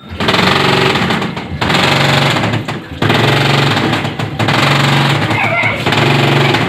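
Top-loading washing machine agitating with a loud, rapid rattling and grinding, dropping out briefly about every second and a half as the pulsator's stroke reverses. A noise like this points to something broken lodged under the pulsator or trouble at the gearbox pulley, with the gearbox itself checked last.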